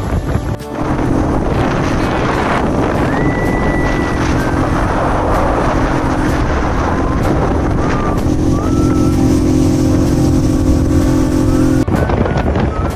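Speedboat's outboard motor running steadily at speed, a constant engine tone under the rush of water and wind buffeting the microphone.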